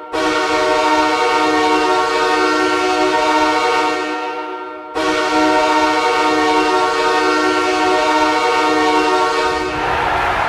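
Los Angeles Kings arena goal horn sounding in two long blasts of about five seconds each, the second starting right after the first fades. Near the end the horn stops and a noisy crowd roar takes over.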